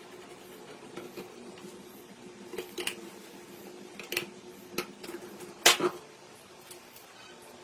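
Metal objects clinking and knocking against each other in a few separate clanks, the loudest a little before the end, over a faint steady hum.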